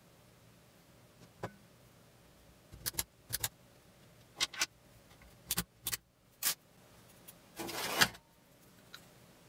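Steel parts of a homemade jeweler's saw frame being handled and set down on a wooden board: a string of short, sharp clicks and knocks, then a longer scraping clatter near the end, the loudest sound.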